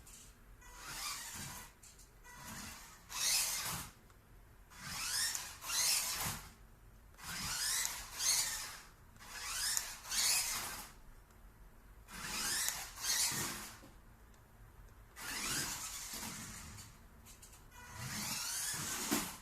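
The electric drive motor and gears of a 1/18-scale 4x4 RC car whine in a dozen or so short bursts as it is driven. Each burst rises in pitch as the car speeds up, with quieter gaps between throttle pulls.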